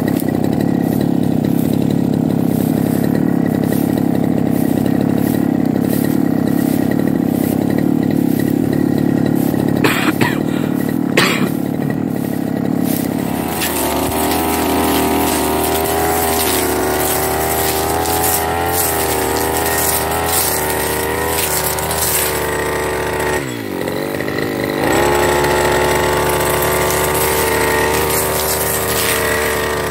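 Firman backpack brush cutter engine running at a low, even speed, with two sharp knocks about ten seconds in. The engine is then opened up to high revs to cut grass, dips briefly and picks back up again.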